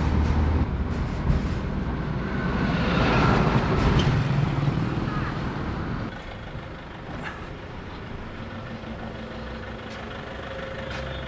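Engine and road noise from riding in a songthaew pickup-truck taxi in traffic: loud for the first half with a swell about three seconds in, then dropping suddenly about six seconds in to a quieter steady engine hum as the vehicle slows.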